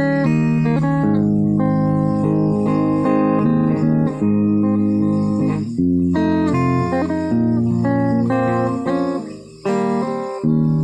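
Guitar played fingerstyle: a plucked melody over held bass notes, with a brief drop in level near the end before the playing resumes.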